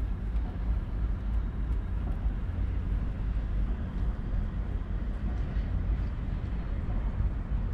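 Steady low rumble of outdoor city ambience.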